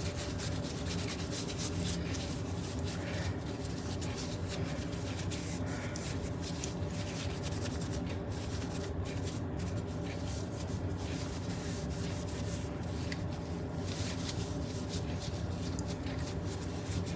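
A cloth rubbing over steel pliers as they are wiped down with WD-40, with small scattered clicks of metal. A steady low hum runs underneath.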